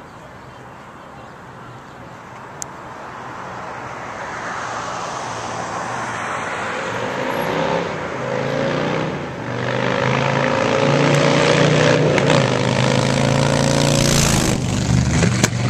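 Custom chopper motorcycle engine approaching from a distance, accelerating with rising pitch and two brief dips as it shifts gear, growing louder until it passes close by; a few sharp pops near the end.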